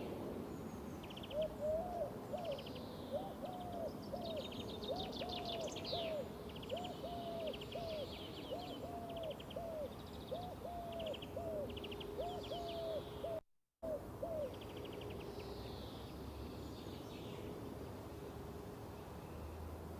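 A looped recording of birdsong played in place of the live sound: repeated low hooting calls, mostly in pairs, over higher chirping and trilling birds. It cuts out completely for a moment about two-thirds of the way through.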